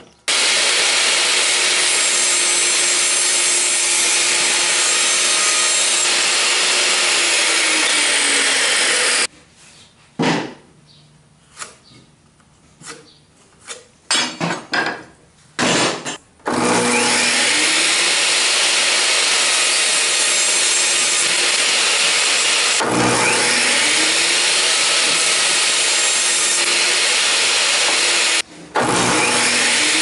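Electric saws cutting cedar boards. A saw runs loudly for about nine seconds, its tone sagging near the end as it cuts. After a pause of several seconds with scattered knocks, a table saw runs while cedar pieces are fed through the blade, its tone dipping as the cuts bite, with a brief break near the end.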